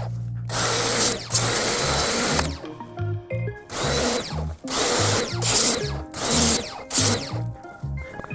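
A cordless drill-driver run in short bursts, its pitch rising and falling, over background music with a stepping bass line.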